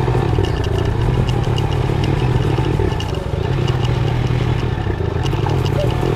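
Motorcycle engine running steadily as the bike rolls slowly along, heard from the bike itself, with light clattering ticks over the hum.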